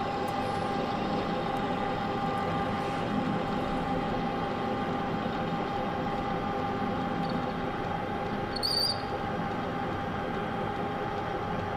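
Manual metal lathe running steadily with its motor and gear whine, the spindle turning a 1-inch shaft while the cutter takes a facing pass across the end. A brief high squeal comes about nine seconds in.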